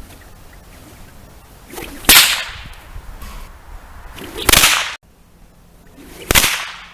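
A whip cracking three times, roughly two seconds apart, each sharp crack coming after a short swish as the lash is swung.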